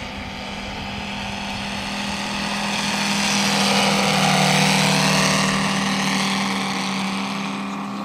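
O.S. five-cylinder radial engine of a 1/5-scale Westland Lysander model plane running at steady power through a low fly-by. It swells to its loudest about halfway through as the plane passes closest, then fades as it flies away.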